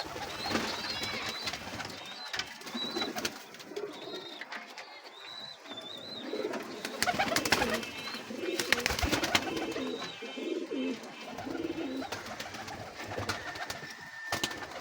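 Pigeons cooing, a run of low, pulsing coos in the middle, with thin high bird chirps and scattered sharp clicks and taps throughout.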